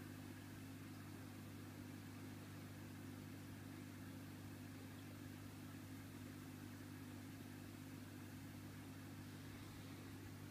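Faint, steady low electric hum of aquarium equipment such as the filter pump, over a light hiss.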